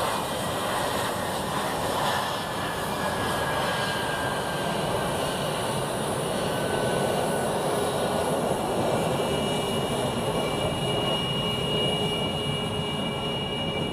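The two Pratt & Whitney F119 turbofans of an F-22 Raptor run at low taxi power as the jet rolls past: a steady rushing jet noise with a high turbine whine. The whine becomes clearer in the second half, as the jet goes by and its exhausts turn toward the listener.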